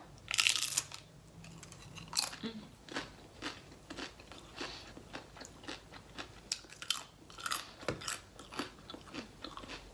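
Close-miked chewing and crunching of crunchy food, with a loud bite about half a second in followed by irregular crunches and mouth sounds.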